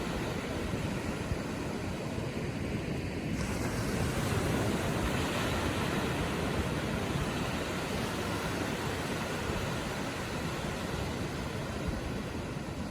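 Gentle ocean waves lapping on the shore. A wash swells about three and a half seconds in and slowly eases off.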